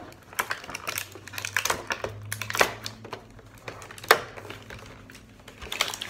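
Clear plastic toy packaging crinkling and crackling as it is handled, in irregular sharp clicks, with two louder crackles about two and a half and four seconds in.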